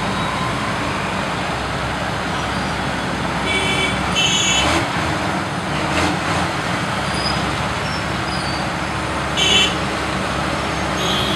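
Traffic jam at a railway level crossing: a steady mix of motorcycle, scooter and truck engines running. Short vehicle horn toots come several times, around four seconds in, louder near nine and a half seconds, and again near the end.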